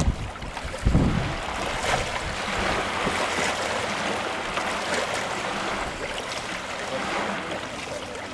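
Small waves lapping at the water's edge, a steady splashing wash, with wind buffeting the microphone in a low rumble about a second in.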